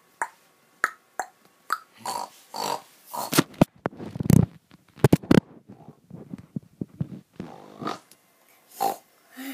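A girl imitating a pig: a string of short, irregular snorts and grunts, with a louder, longer low snort about four seconds in.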